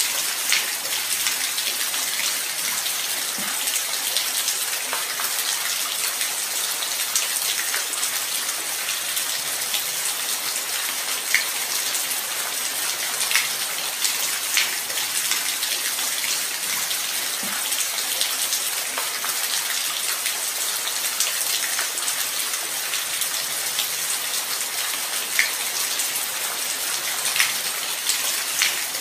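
Steady light rain: an even hiss of falling rain with scattered close drops ticking now and then.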